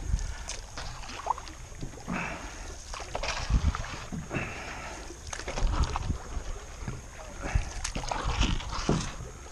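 Water sloshing and splashing around a jon boat working through shallow river water, with scattered knocks and a steady low rumble underneath.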